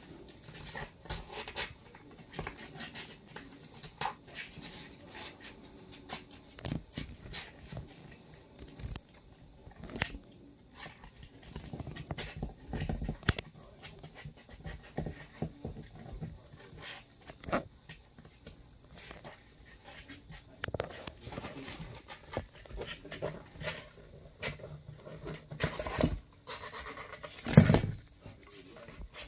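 Kittens' paws pattering and scratching on cardboard as they scramble and play, a scatter of irregular scuffs and clicks. A louder thump comes a second or so before the end.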